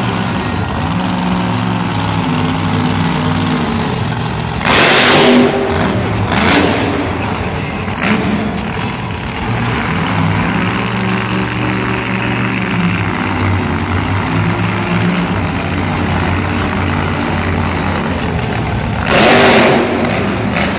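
Monster truck's big supercharged V8 engine revving up and down repeatedly, echoing in an arena. Two loud bursts of noise, each under a second long, cut in about 5 seconds in and again near the end.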